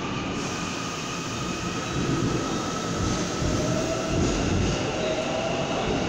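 Seoul Subway Line 7 electric train with a VVVF-IGBT inverter pulling out of the station. Its traction inverter and motors whine in several tones that rise in pitch as it accelerates, over a wheel and track rumble that grows louder about two seconds in.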